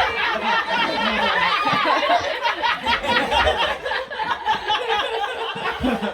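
A small audience chuckling and laughing softly, with murmured voices.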